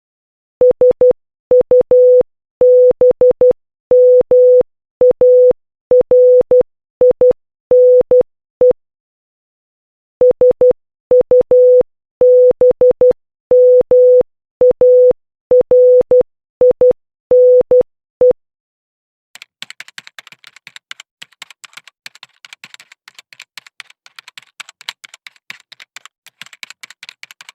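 Morse code practice signal: a single steady beep near 500 Hz keyed into short dots and longer dashes, in letter groups with a longer word pause about nine seconds in. The beeping stops about 18 seconds in, and a fainter dense crackle of fast clicks follows.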